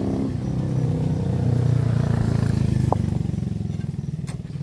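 Engine of a passing motor vehicle: a steady low hum that grows louder to a peak about halfway through, then fades away.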